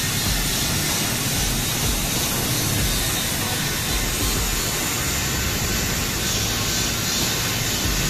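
Senfeng fiber laser cutting thick metal plate, plausibly 16 mm on a 1.5 kW machine: a steady, even hissing rush of assist gas blowing from the cutting head as it burns through the plate.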